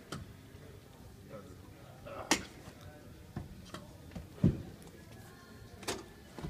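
Seat mechanism of a 2014 Toyota Highlander's second-row seat being folded down flat: a series of separate clicks and knocks from the release latches and the folding seat back, the loudest a low thud about four and a half seconds in.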